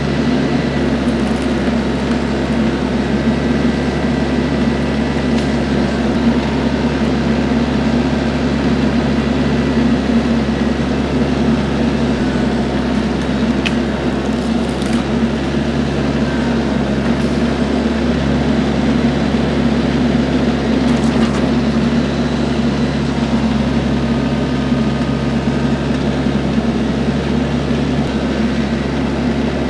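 TYM compact tractor's diesel engine running at a steady speed with an even, unchanging hum.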